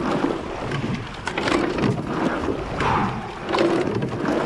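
Rowing eight under way at race pace: water rushing along the hull, with sharp knocks of the oars turning in their gates repeating with the stroke.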